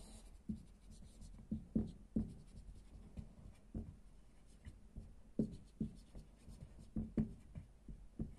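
Dry-erase marker writing on a whiteboard: irregular short strokes and taps of the felt tip against the board, one or two a second.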